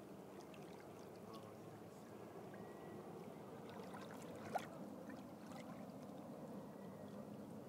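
Water lapping and sloshing softly against a kayak's hull, with a single short click about four and a half seconds in.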